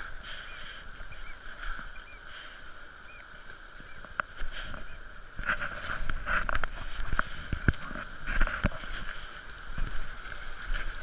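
Shallow, stony river rushing steadily. From about halfway there are many short crunches and knocks, footsteps on the gravel and river stones.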